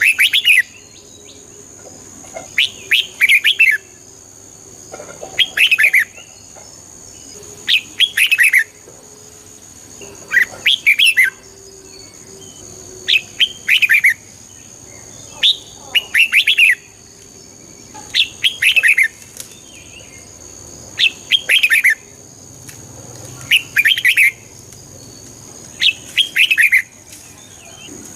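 Red-whiskered bulbul singing: short, quick, warbling phrases of about a second each, repeated at an even pace roughly every two and a half seconds. A faint steady high-pitched whine runs underneath.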